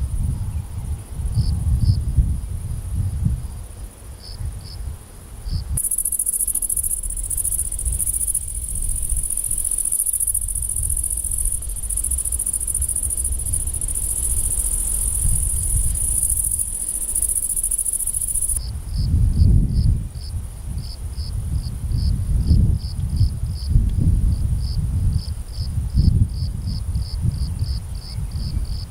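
Outdoor insect chorus: a steady, high-pitched insect drone, louder through the middle, and a cricket's short chirps repeated several times a second, coming thick and fast over the last ten seconds. A low rumbling noise runs beneath.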